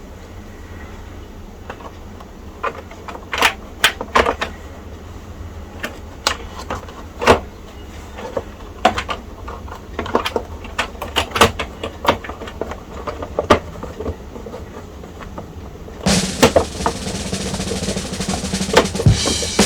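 Irregular clicks and knocks of the computer's case parts being handled and fitted back together, over a steady low hum. About 16 seconds in, a louder, denser stretch with quick drum-like hits begins.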